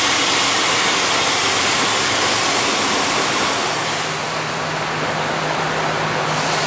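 Buses idling at a bus stand. A loud, steady rushing noise runs for the first four seconds. It then gives way to a Mercedes-Benz Citaro bus engine idling with a steady low hum.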